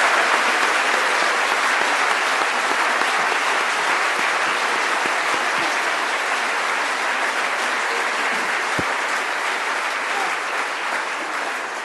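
A congregation applauding at length, the clapping easing off slightly near the end.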